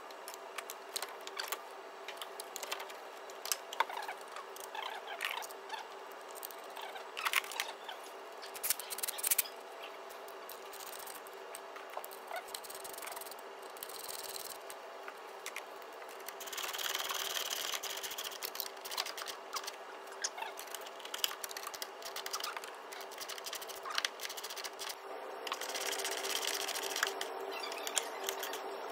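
Scattered clicks and clinks of hand tools on metal over a faint steady hum, with a couple of longer rattling stretches about two-thirds of the way in and near the end.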